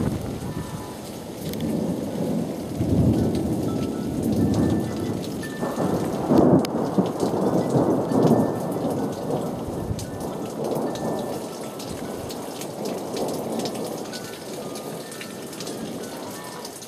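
Rain falling, with scattered drop ticks, under a long, low rolling rumble that swells over the first several seconds and slowly fades away toward the end.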